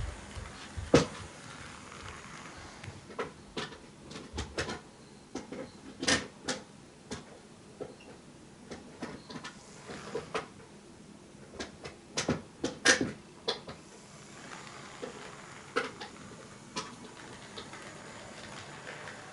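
HO-gauge model train running on sectional track, its wheels clicking and knocking at irregular intervals over the rail joints, over a faint steady running noise.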